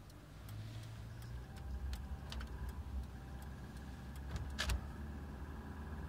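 Subaru EJ25 flat-four engine driving under light load around 2000 rpm, heard from inside the cabin as a steady low drone, with a few sharp clicks about two and four and a half seconds in. This is the range where the owner hears piston slap from a nearly new factory short block, which he suspects is the #3 piston.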